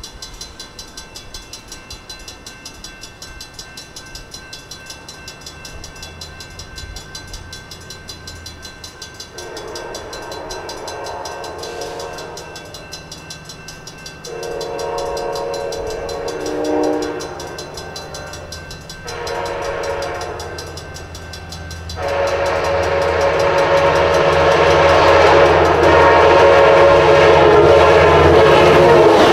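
An Amtrak F59PHI diesel locomotive sounds its Nathan K5LA five-chime horn in the grade-crossing pattern of long, long, short, long as it approaches at speed, over the steady ringing of a crossing bell. The locomotive's rumble grows louder through the last long blast as it nears.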